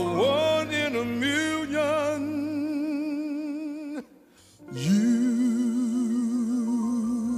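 A man singing solo into a microphone: an ornamented run of notes settling into a long held note with vibrato. It breaks off about four seconds in, and after a short gap he holds another long note with vibrato.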